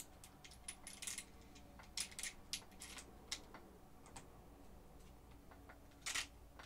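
Faint, scattered small clicks and taps of metal pins and parts being handled and fitted into the front suspension of an RC truggy, with a brief scuffing noise about six seconds in.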